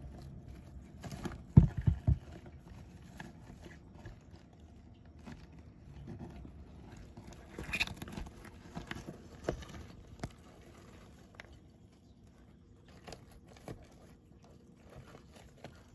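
Greek tortoise walking over coconut husk chip bedding: its claws and shell scrape and knock on the dry chips in scattered clicks, with a few loud knocks about two seconds in and another cluster near the middle.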